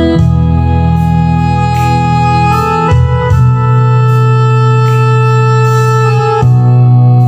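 Instrumental music of held organ-style keyboard chords, changing chord about three seconds in and again about six and a half seconds in.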